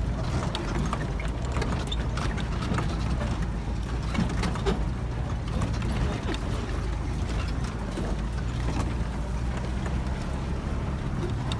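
Off-road 4x4 vehicle's engine running with a steady low hum, with scattered knocks and rattles over it.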